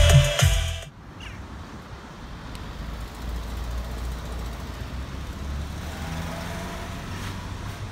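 Background music cuts off about a second in, giving way to the steady low rumble of a motor vehicle running.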